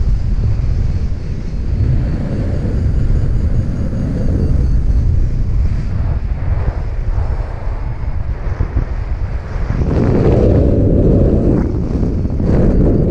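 Wind buffeting the microphone of a camera on a paraglider in flight: a loud, continuous rushing rumble that grows stronger about ten seconds in.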